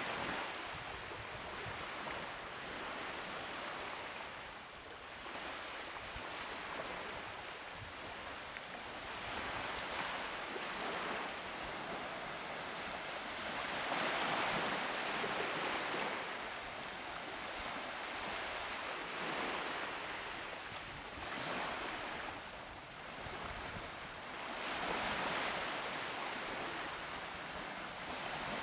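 Small waves washing onto a sandy beach: a soft hiss that swells and fades every few seconds. A short click sounds about half a second in.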